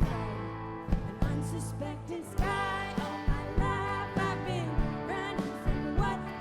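A live band playing an alt-country rock song: drums hitting under sustained guitars, with a wavering melody line coming in about two and a half seconds in.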